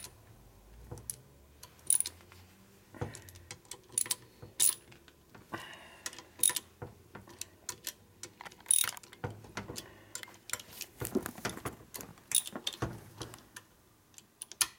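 Ratchet wrench clicking in short runs, with sharp metal clicks and clinks, as the oil pump's mounting bolts are torqued down.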